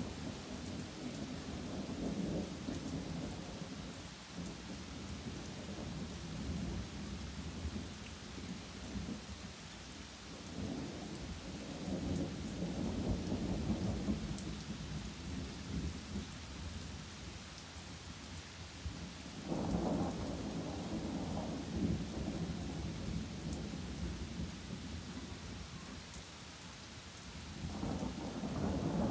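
Steady rain falling on trees, with thunder rumbling in repeated long rolls. One roll breaks in suddenly about two-thirds of the way through, and another builds near the end.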